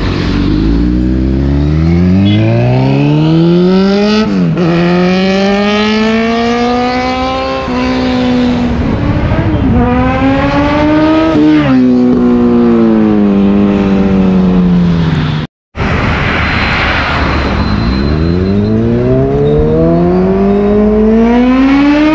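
Sport motorcycle engine accelerating through the gears: the pitch climbs, drops sharply at upshifts about 4.5 and 11.5 seconds in, then falls away as it slows. After a short break about 15 seconds in, the engine climbs again from low revs.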